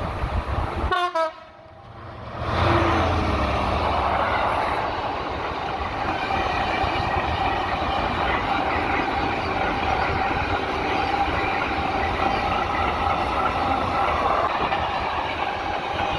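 Class 66 diesel freight locomotive passing close by, its two-stroke V12 engine running, followed by the steady rumble and clatter of loaded car-carrier wagons rolling past. The train arrives loudly about two and a half seconds in.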